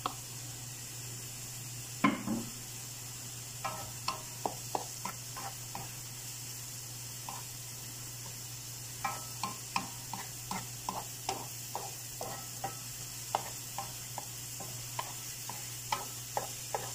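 Wooden spatula stirring diced vegetables in a frying pan, knocking and scraping on the pan in irregular clicks, over a steady sizzle of vegetables sautéing in butter. A single sharper knock comes about two seconds in.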